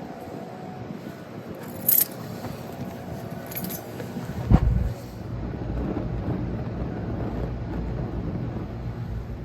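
A brief sharp scrape about two seconds in and a heavier thump about halfway through, then a steady low rumble of wind on the microphone.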